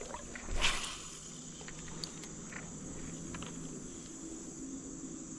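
A short splash of water about half a second in, from someone wading in a creek, followed by a few light ticks over a steady high hiss.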